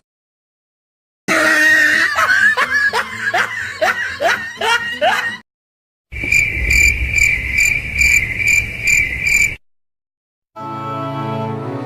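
Separate sound-effect clips with silent gaps between them: a string of quick, squeaky calls sweeping in pitch, then high cricket chirping that pulses about twice a second, then a sustained musical drone starting near the end.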